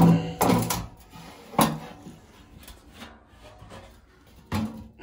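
Sheet-metal furnace blower housing being flipped over on a concrete floor: a series of clunks and scrapes, the loudest at the start and a sharp knock about one and a half seconds in, with lighter knocks after.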